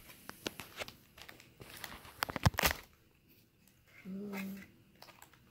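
A small cardboard trading-card box being opened by hand: a run of crinkles, crackles and tearing clicks as the flap is pulled open, the loudest about two and a half seconds in.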